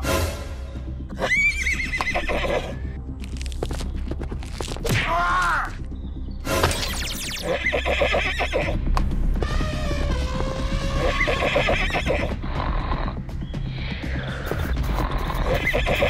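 Horse whinnying several times over background music.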